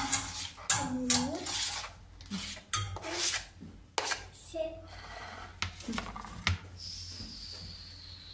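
Kitchen knife scraping chopped onion across a cutting board onto a plate, with a run of sharp scrapes and knocks, densest in the first few seconds and sparser after.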